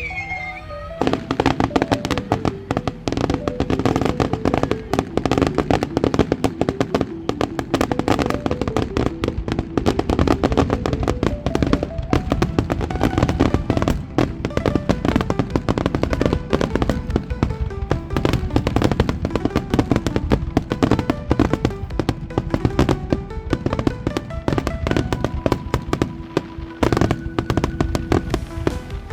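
Fireworks finale: a dense, continuous barrage of rapid bangs and crackling, starting about a second in, with music playing along underneath.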